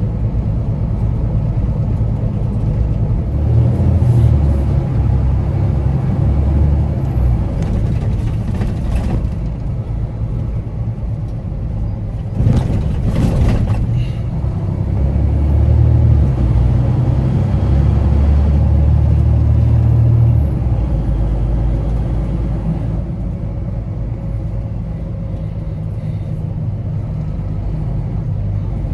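Diesel engine of a Kenworth T880 ready mix truck running under way, its low drone swelling and easing as the load changes. A faint high whistle comes and goes twice.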